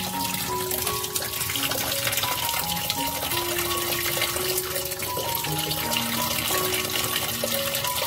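A stream of water pouring into the empty plastic wash tub of a Panasonic NA-W97FC1 twin-tub washing machine and splashing onto the pulsator, the tub being filled in wash mode to test for a leak past the drain seal. Background music plays throughout.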